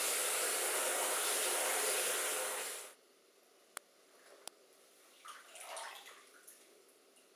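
Tap running steadily into a bathtub, then cutting off abruptly about three seconds in. After it, quiet, with two sharp clicks and faint small water sounds as plastic bath toys are handled.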